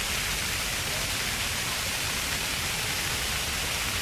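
Jets of a ground-level splash-pad fountain spraying and splashing water in a steady, even hiss.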